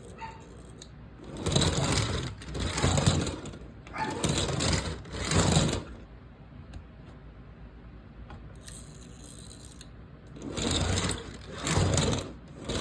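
Small electric motor of a homemade Lego track switcher buzzing in short bursts as it throws the switch points: four bursts in the first half and two more near the end, each under a second long.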